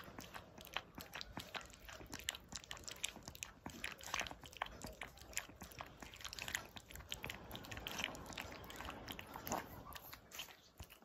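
A puppy lapping milk from a steel bowl: a long run of quick wet clicks, several laps a second, that pauses briefly near the end as it lifts its head.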